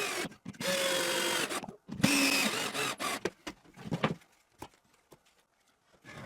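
Cordless drill driving screws into plywood to fasten a metal drawer slide, in three short runs of the motor with a steady whine. A few light clicks and knocks of handling follow.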